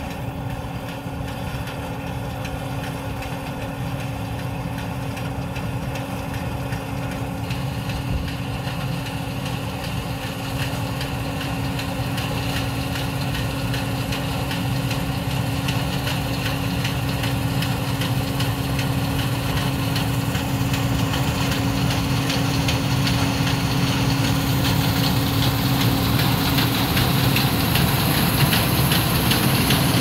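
John Deere 9580 WTS combine harvester running while it cuts and threshes barley: a steady drone of diesel engine and threshing machinery with a constant hum, growing louder as it comes closer. Near the end a hiss of crop passing through the header builds up.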